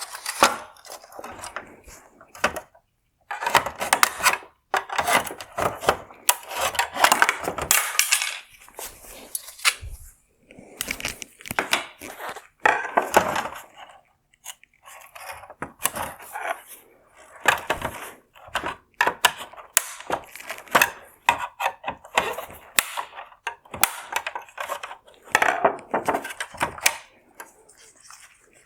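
Plastic clicks, scrapes and rattles from the housing of a C8 Corvette LED headlight being worked on with a T20 Torx driver and handled, in irregular bursts with short pauses between them.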